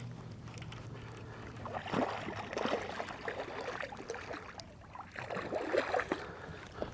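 Water splashing and sloshing around a fishing boat in two uneven spells, with small knocks; a low steady hum fades out at the start.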